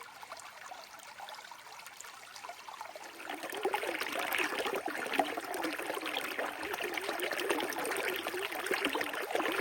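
River water running, with a steady wash of small splashes that grows clearly louder about three seconds in.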